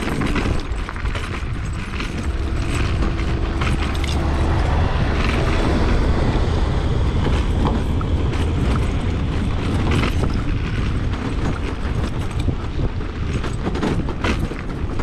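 Zero 10X electric kick scooter riding over a rough gravel road: a steady rumble of wind and tyres with repeated knocking and rattling from the suspension. The knocking comes from a spring with no shock absorber bouncing back sharply at every pothole, plus play in the suspension pivot pin.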